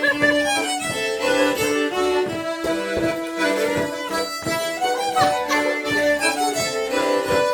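Fiddle playing a tune, the notes over a steady beat.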